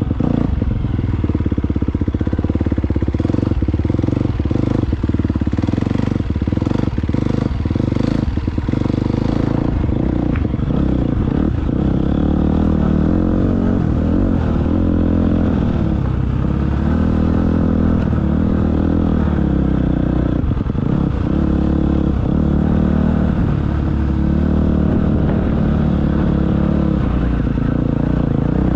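Motocross bike engine ridden hard, heard from on the bike: it revs up and drops back over and over as the rider accelerates and shifts down the straights and backs off into corners. Knocks and rattles are heard over it, mostly in the first third.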